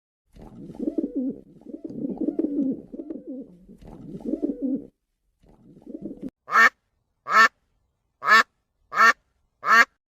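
Duck quacking: about six seconds of low, rapid gabbling calls, then five loud single quacks spaced under a second apart.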